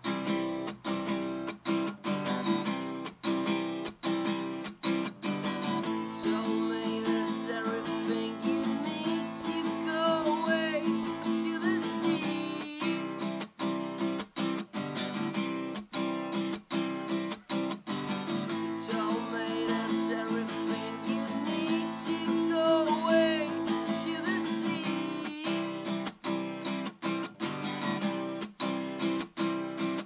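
Acoustic guitar strummed in steady rhythm, full chords ringing between strokes: an instrumental break in a solo acoustic song.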